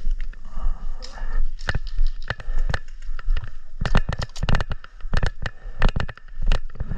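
A run of sharp, irregular cracks and pops, several a second at times and thickest about four to six seconds in, over a low steady hum.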